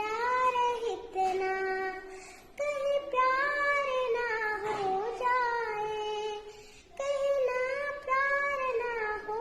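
A young girl singing a melody in a high, clear voice, holding long notes with gliding pitch, in several phrases broken by short breath pauses.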